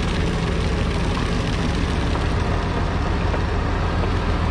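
Fishing boat's engine running steadily, a constant low drone under a wash of noise.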